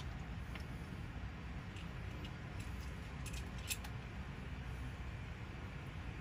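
Hands handling small carburetor parts: a few faint clicks and taps, the sharpest about three and a half seconds in, over a steady low hum.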